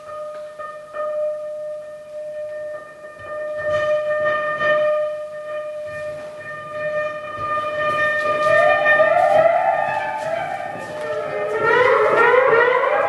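Live electroacoustic electronic music over loudspeakers: a held electronic tone with overtones, with scattered crackling clicks joining a few seconds in. From about eight seconds in, overlapping rising-and-falling siren-like glides pile up and grow denser and louder toward the end.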